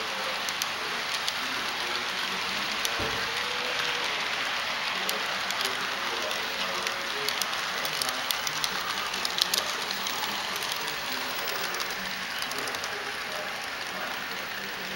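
HO scale model freight train running past, its wheels and motors making a steady rushing hiss with scattered light clicks, busiest around the middle.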